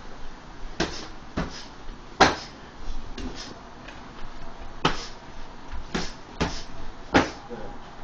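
Strikes landing on hand-held striking pads: a run of sharp smacks, about seven in eight seconds at an uneven pace, the hardest a little over two seconds in.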